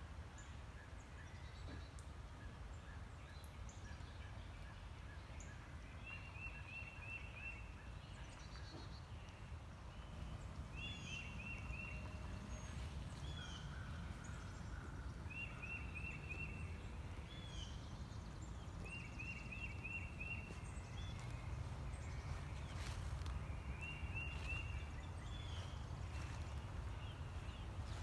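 Birds calling outdoors: one repeats a quick run of about five short high chirps every few seconds, with other scattered higher notes, over a low steady rumble.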